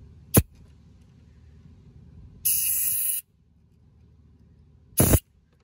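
Refrigerant hissing out of a van's AC service port as the valve core is pressed: a sharp short spurt, then a loud hiss lasting under a second, then another brief spurt near the end. The escaping gas shows the system still holds refrigerant.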